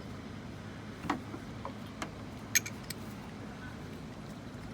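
Metal hand tools clinking: several short, sharp clicks of a socket and ratchet being handled and fitted, over a steady low background hum.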